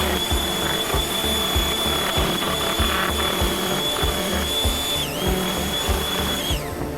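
A small power tool running with a steady high whine, which dips briefly about five seconds in and winds down near the end, over background music with a steady beat.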